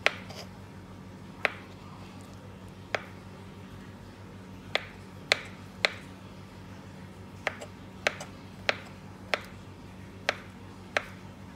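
Kitchen knife chopping through avocado and striking a plastic cutting board, a sharp tap with each stroke, about a dozen taps at an uneven pace, with a low steady hum underneath.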